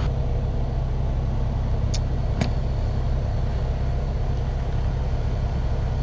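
Luxaire variable-speed outdoor air-conditioning unit running steadily, compressor and condenser fan ramped up to full cooling, as a low, even hum. The system is low on refrigerant charge. Two light clicks come about two seconds in.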